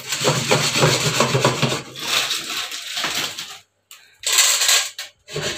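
Dry popcorn kernels scraping and rattling around in an enamel cooking pot. The sound runs for about three and a half seconds, then comes back in two short bursts.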